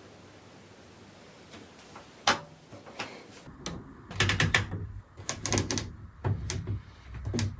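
Washing machine program selector dial being turned, clicking through its positions: one sharp click a little past two seconds in, then quick runs of clicks with light knocks through the second half.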